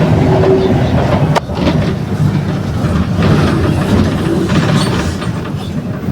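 Mercedes-Benz OF 1721 BlueTec 5 bus engine running under way, a steady low rumble mixed with body rattle. One sharp knock about a second and a half in.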